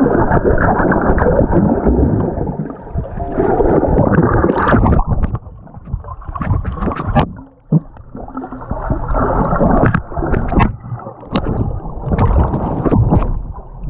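Water sloshing and gurgling right around the microphone, heavily muffled, with frequent sharp splashes, as with a camera in or at the surface of a swimming pool.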